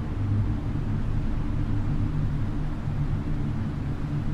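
Ambient music: a low, steady drone with a faint hiss above it.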